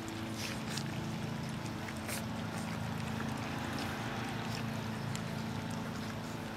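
Litter of four-week-old English Shepherd puppies eating together from a pan, with scattered faint clicks and smacks, over a steady low hum.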